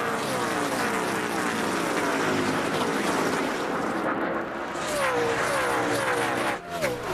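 A pack of NASCAR stock cars with V8 engines racing past at speed, their engine notes dropping in pitch one after another as each car goes by.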